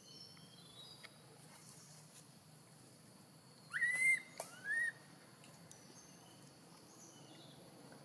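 Newborn long-tailed macaque crying: two short, high-pitched rising calls less than a second apart, about four seconds in, over a faint steady hum of insects.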